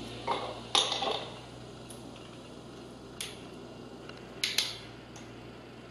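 Light clinks and taps of utensils and dishes on a kitchen counter, about seven short knocks spread out, with a pair close together a little past halfway.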